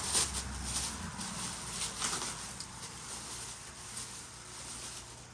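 Handling noise from pieces of chert being picked over: light rustling and scattered clicks, busiest in the first couple of seconds and thinning out after.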